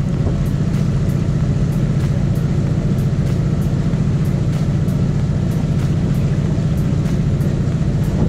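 A sailboat's auxiliary engine running steadily under power, a low even drone.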